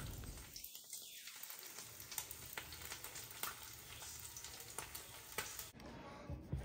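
Pot of water boiling with chicken thighs: faint, steady bubbling with many small crackling pops, briefly dropping out about a second in.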